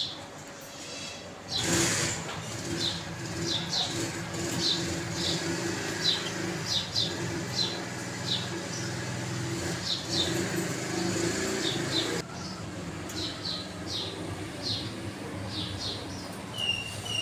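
Pet cockatiels and green parrots chirping, a steady run of short high chirps, with a brief rustling burst about two seconds in and a short whistled note near the end.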